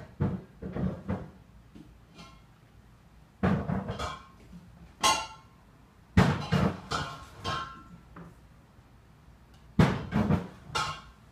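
Small terrier-type dog barking, in four bursts of several quick barks each with short pauses between.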